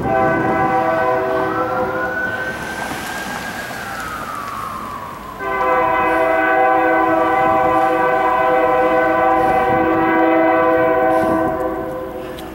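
Freight locomotive's air horn sounding a chord of several notes as it approaches a grade crossing: the horn fades over the first few seconds, then a second long, louder blast starts about five seconds in and lasts about six seconds.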